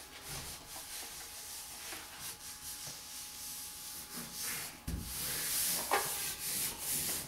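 Paper backing being peeled from a vinyl wall decal as hands rub the decal down onto the wall: a papery rustling and rubbing that grows louder and hissier from about five seconds in, with a low thump at that point.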